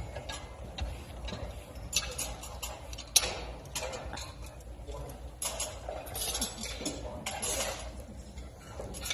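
Scattered clinks of cutlery and dishes at dinner tables, over a low steady hum. The sharpest clink comes about three seconds in.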